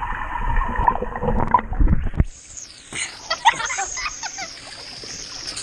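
Pool water heard through an action camera held underwater: a muffled rumble with a steady hum. About two seconds in, the camera breaks the surface and splashing, sloshing and dripping water take over.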